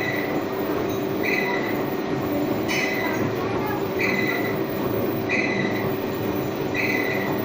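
Steady workshop machinery hum with a short high tone repeating about every 1.3 seconds.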